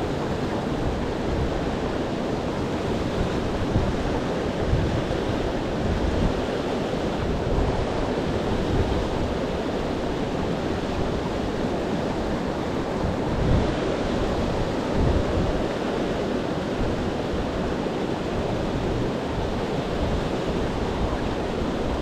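Steady rush of a rocky mountain stream flowing over stones, with wind buffeting the microphone in low rumbles.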